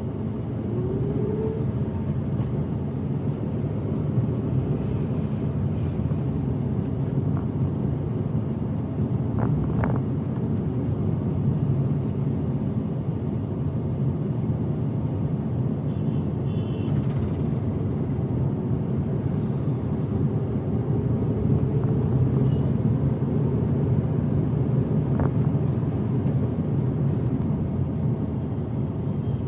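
Steady engine and tyre rumble of a car driving through city traffic, with the engine pitch rising briefly about a second in and again around twenty seconds in.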